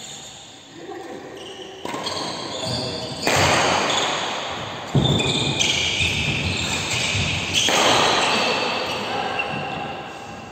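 Badminton rally in an echoing sports hall: several sharp racket strikes on the shuttlecock, each ringing on, with high squeaks between them.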